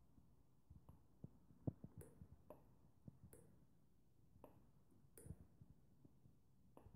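Near silence: room tone with a few faint, irregularly spaced clicks and one small knock about two seconds in.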